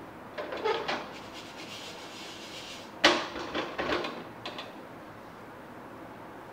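Clatter and knocks of metal on an aluminium pressure cooker as it is handled with a cloth while hot: a short clatter about half a second in, then the sharpest knock just after three seconds, followed by a few lighter ones.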